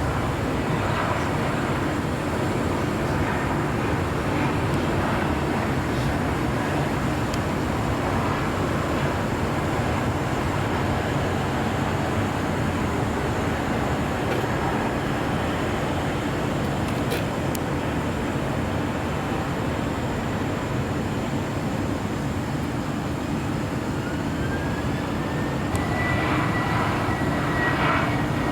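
Jet airliner engines running, a steady rushing rumble, with a rising whine near the end that then holds on one pitch.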